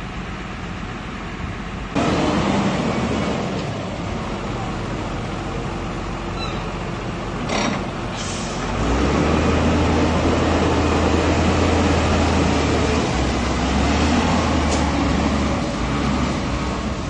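Diesel engine of a wheel loader running as the machine drives along. It gets louder about two seconds in, with two short sharp sounds a little before the middle, then settles into a steady low drone from about halfway.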